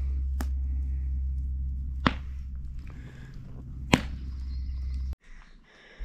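Intro sound effect under the title animation: a steady deep rumble crossed by three sharp whip-like cracks about two seconds apart, the last the loudest. The rumble cuts off abruptly about five seconds in, leaving faint outdoor background sound.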